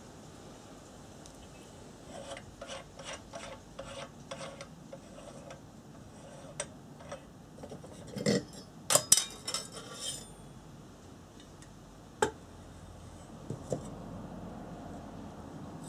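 Metal clicks, scrapes and clinks of a Coleman 288A700 two-mantle pressure lantern being taken apart by hand as its ventilator hood is unscrewed and lifted off. There is a run of light clicks a few seconds in, a louder clatter of metal midway, and a single sharp knock a couple of seconds later.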